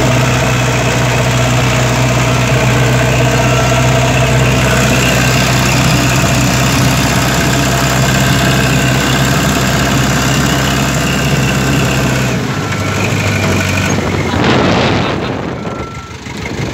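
Backhoe loader's diesel engine running steadily under throttle while the machine reverses with its loader bucket lowered onto the hard dirt to scarify it. About twelve seconds in the engine note drops to a lower, lighter pitch.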